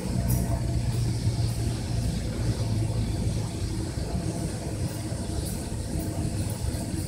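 Helicopter turbine engine running at idle on the pad: a steady low hum with a thin, high, constant whine above it.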